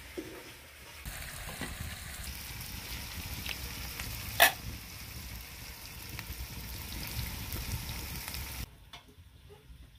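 A pot of food sizzling and bubbling over an open wood fire, a steady hiss with one sharp knock about four and a half seconds in. The hiss cuts off suddenly near the end.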